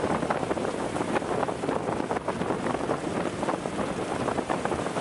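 Wind buffeting the microphone aboard a motorboat running fast across a lake, a steady rush of wind and water noise full of short gusty thumps.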